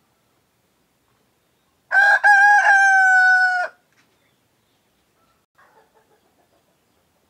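Layer-breed cockerel crowing once, about two seconds in: a crow of under two seconds that ends on a long held note.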